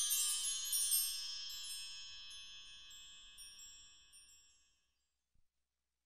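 A cluster of high, bright chimes ringing out together and fading away over about four and a half seconds, then dead silence.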